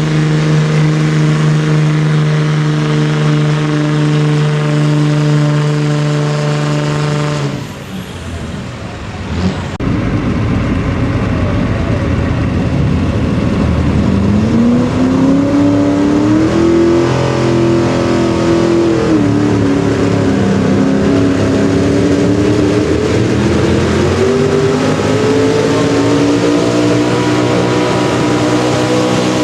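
Pickup truck engines under full load pulling a weight-transfer sled: first one engine holds a steady high note, then it breaks off. After the break, a second truck's engine climbs in pitch as it launches and pulls, drops briefly, then climbs again.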